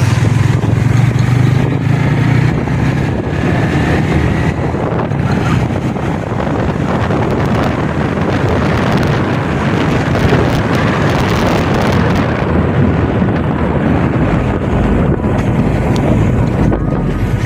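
Vehicle running along a road, with wind buffeting the phone's microphone.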